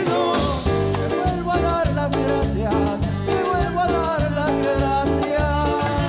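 Live band playing Latin American folk-pop music on acoustic guitars, drum kit and congas, with a steady beat.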